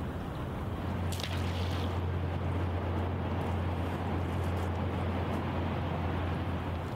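Outdoor noise with a steady low hum that comes in about a second in and holds, and a brief high hiss at about the same moment.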